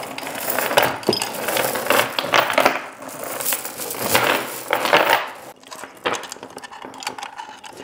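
Steel chain of a hand lifting hoist rattling and clinking as it is untangled by hand: a busy, irregular clatter that thins out after about five seconds.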